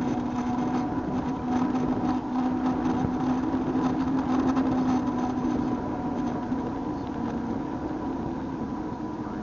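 A steady motor drone holding one pitch over a low rumble, a little louder in the middle.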